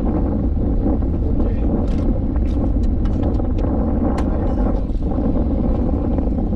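Small fishing boat's engine running steadily, with a few light clicks and knocks over it.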